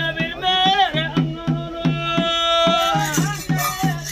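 Live ritual music for a bhuta kola: a wind instrument plays a melody of long held notes that bend up and down, over a steady drum beat of about three strokes a second.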